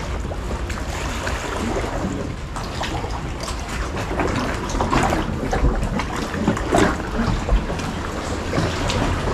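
Kayak paddle strokes splashing in the sea and water lapping around the kayak, with wind noise on the microphone. The strongest splashes come about five and seven seconds in.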